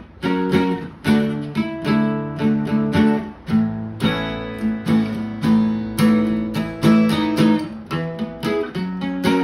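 Acoustic-electric guitar strummed in a steady rhythm, about two chord strokes a second, with no singing.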